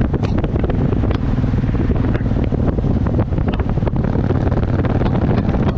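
Motorcycle running at steady cruising speed, its engine drone buried under heavy wind buffeting on the microphone.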